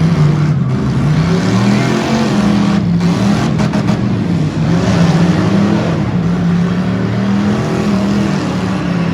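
Several stock V8 car engines running hard and revving, their pitch rising and falling over and over.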